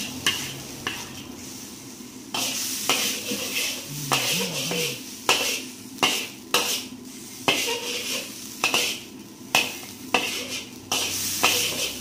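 Squid and crushed garlic sizzling as they are stir-fried in a pan, with the spatula knocking and scraping against the pan every second or so.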